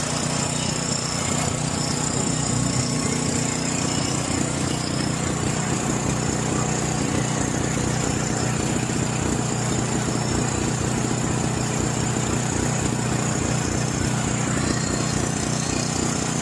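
John Deere 6200 portable generator's engine running steadily with the choke off. It is running on its original carburetor, which is gummed with old fuel, and it still has running problems.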